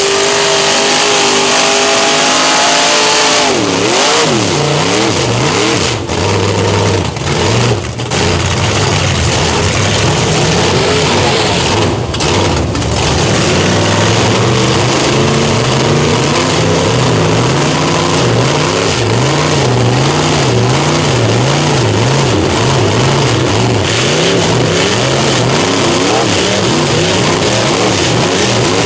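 Lifted mud-bog pickup trucks' engines revving hard while their big tires spin through deep mud. The revs hold high for the first few seconds, drop away, then rise and fall over and over in the second half.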